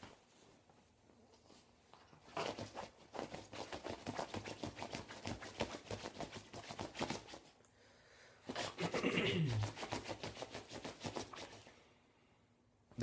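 A Maltese dog moving on a bed duvet, making two runs of fast, even rustling and scratching strokes. About nine seconds in it gives a short whine that falls in pitch as it yawns.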